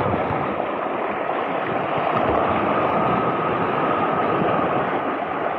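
Sea surf washing over shoreline rocks: a steady rush of water.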